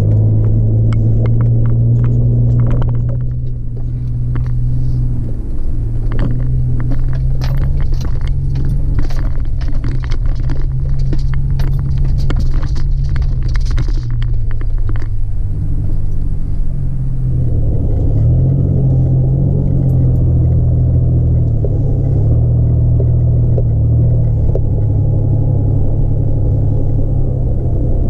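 Vehicle engine and tyres giving a steady low rumble, heard from inside the cabin while driving across sand, with a run of quick knocks and rattles through roughly the first fifteen seconds.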